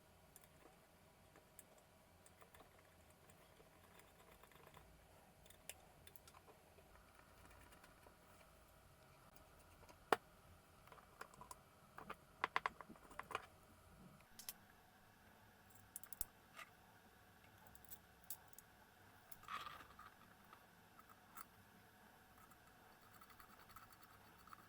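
Faint, scattered clicks and light taps of small parts and tools being handled on a workbench. The sharpest click comes about ten seconds in, with a quick run of clicks a couple of seconds later and a brief scrape near the end.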